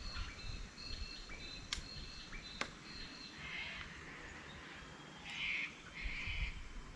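Wild birds calling in the open: short, high whistled notes repeat through the first half, then harsh, raspy calls come about halfway in and again near the end. A couple of sharp clicks and a low wind rumble lie underneath.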